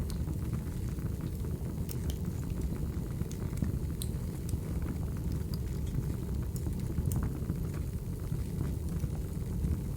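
Crackling wood fire: a steady low rumble of burning logs with scattered sharp pops and snaps.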